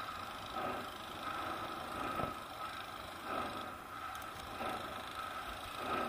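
Steady road and traffic noise heard from a bicycle riding along a busy city street, with cars moving in the lanes alongside.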